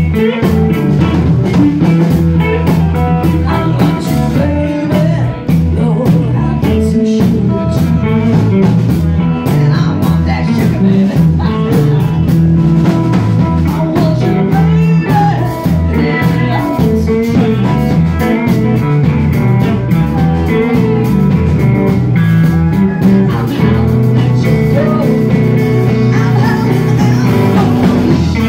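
Live electric blues band playing: electric guitars over bass guitar and a drum kit, in a steady groove.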